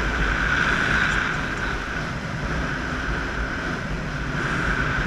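Steady rush of wind over a camera microphone in paraglider flight, a constant buffeting rumble with a hiss on top.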